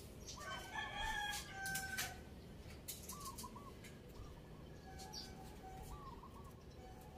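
A rooster crowing once, about a second and a half long, followed by faint short bird calls.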